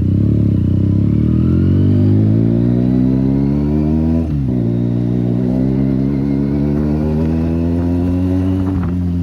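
Benelli 300 parallel-twin with an SC Project exhaust accelerating under way: the engine pitch climbs steadily, drops sharply about four seconds in at an upshift, then climbs again in the next gear.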